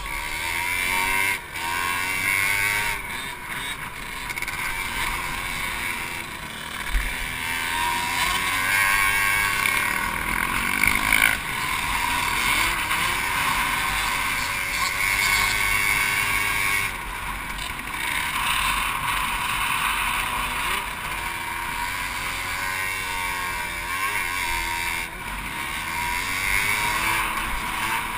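Honda CRF250X dirt bike's four-stroke single-cylinder engine revving up and down as it is ridden through the gears, heard from an onboard camera with wind rushing over the microphone.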